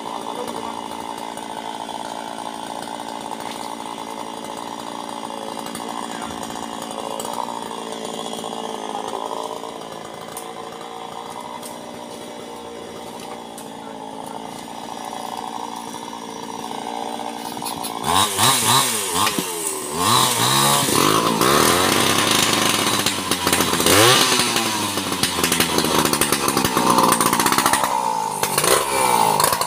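Chainsaws: for the first part one runs steadily, quieter and further off, then about 18 s in a second chainsaw close by starts revving up and down loudly, its pitch rising and falling.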